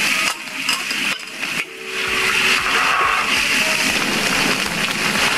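Ground garlic and shallot paste sizzling in hot oil in a wok, a steady frying hiss as the spice paste is sautéed until fragrant. The hiss dips briefly a few times in the first two seconds.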